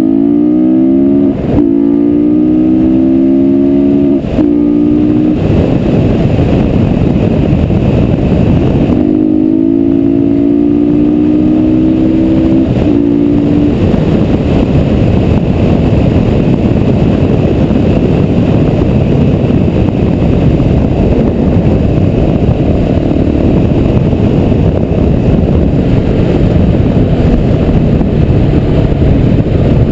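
KTM 690 SMC R's single-cylinder four-stroke engine accelerating through the gears. Its pitch rises in steps, with a short break at each upshift, once in the first few seconds and again about ten seconds in. It then runs steadily at cruising speed.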